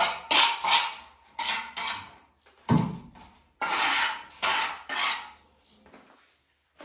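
Scraping strokes of a long metal straightedge drawn over fresh cement render, several quick strokes in two runs with a dull knock between them, then it stops near the end.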